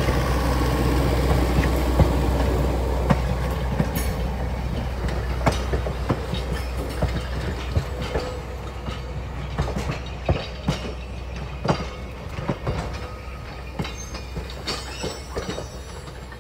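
Railroad passenger coaches rolling past and away, a steady rumble of wheels on rail with irregular clicks as the wheels pass over the rail joints. The sound fades steadily as the last car goes by.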